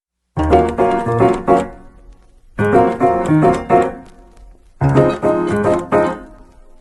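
Piano music: a short phrase of quick notes played three times, each ringing out and fading before the next begins.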